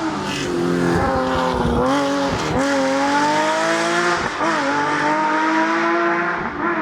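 Historic rally car engine at full throttle, revs climbing and dropping sharply at each of several gear changes as it accelerates along a special stage.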